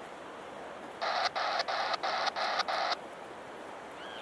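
Scanner radio sounding a buzzy electronic tone in about six quick, even beeps over two seconds, starting about a second in, heard over a steady background hiss.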